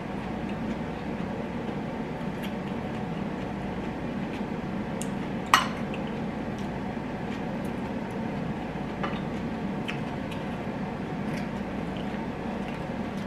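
A metal spoon clinking against a ceramic rice bowl: one sharp, ringing clink about five and a half seconds in and a few light ticks, over a steady low background hum.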